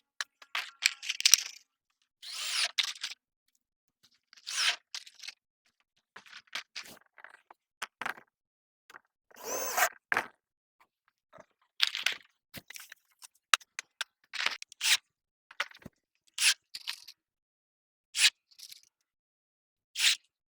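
Power drill driving self-tapping screws into PVC roofing panels in short bursts, with clicks and knocks in between.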